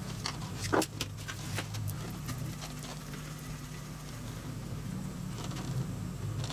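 Light clicks, taps and scrapes of a wooden stick working two-part epoxy glue on a galvanized metal sheet and dabbing it onto a lead plug, with one sharper tap about a second in, over a steady low hum.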